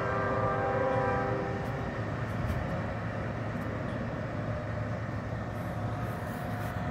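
Air horn of a CN ES44DC diesel locomotive leading a freight train, sounding a chord of several notes that cuts off about a second and a half in. It is followed by the steady low rumble of the approaching locomotives.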